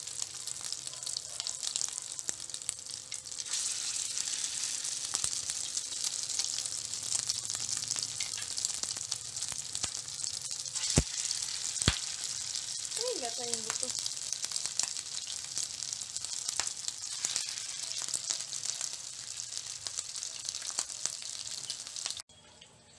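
Meatballs frying in hot oil in a pan: a steady sizzle and crackle that grows louder a few seconds in. Two sharp clicks come near the middle, and the sizzle cuts off suddenly near the end.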